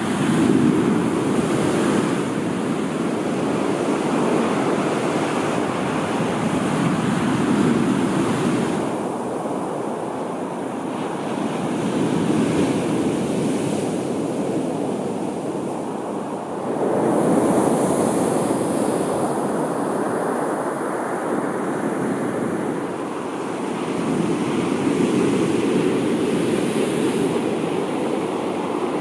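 Sea waves breaking on the shore, the surf swelling and fading in slow surges every five seconds or so.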